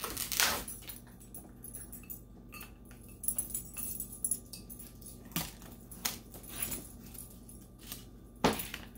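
Shrink wrap and sublimation transfer paper being peeled off a freshly baked stainless steel tumbler-style bowl, crinkling and rustling in scattered bursts. There is a louder crackle about half a second in and another near the end.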